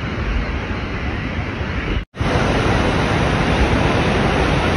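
Steady rush of Niagara Falls pouring. It breaks off for a moment about two seconds in, then returns as a louder, closer rush from right beside the falls on the Cave of the Winds deck.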